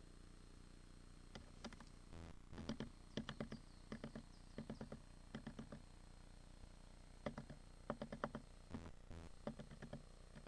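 Faint sharp clicks and taps in small quick clusters, scattered through, over a low steady background hiss.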